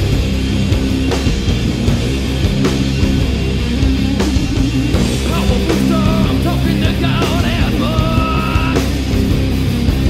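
Loud rock music with distorted guitar and a steady drum beat; a wavering lead line comes in over it about halfway through.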